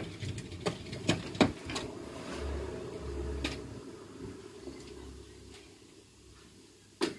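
Kick scooter clattering down steps: a run of sharp knocks, about three a second, over the first two seconds. Then a low rolling rumble fades out, and one more sharp knock comes near the end.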